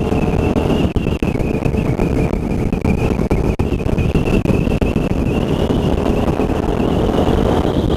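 Suzuki SV650's V-twin engine running steadily at road speed, heard from the rider's seat, with wind rushing over the camera microphone and a steady high whine on top.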